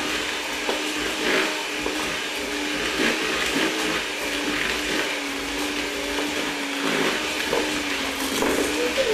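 Electric hand mixer running steadily with a motor hum, its beaters whirring through cake batter as eggs are beaten in, with a few light knocks of the beaters against the plastic bowl.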